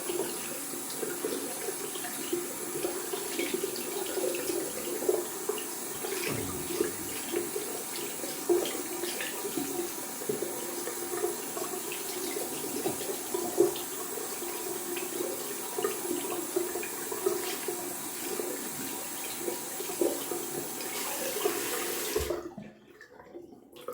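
Tap running into a sink while a shaving brush is rinsed under it, with small splashes, until the water is turned off suddenly near the end.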